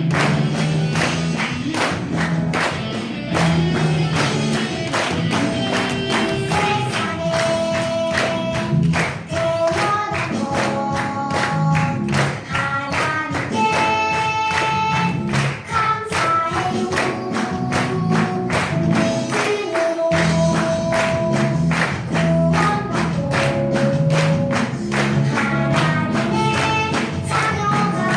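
Gospel song played with a steady beat and tambourine, with singing.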